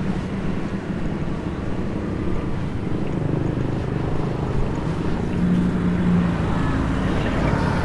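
Steady road traffic: vehicle engines running and passing over a constant rumble, with one engine hum growing louder about five seconds in.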